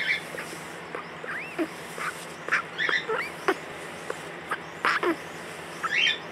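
Young crow making a string of short, squeaky calls, like a guinea pig's, some arching up and down in pitch and some dropping; its voice is very hoarse.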